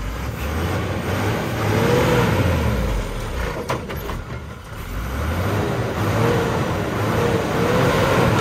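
Borewell drilling truck's engine revving up and easing back down twice, a loud, rough running sound whose pitch climbs and falls with each rev.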